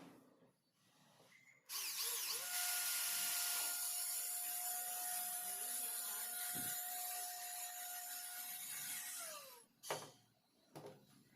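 A small electric power tool starts about two seconds in and runs steadily for about seven seconds, a high hiss over a steady motor whine. The whine then drops as it spins down, and two short clicks follow.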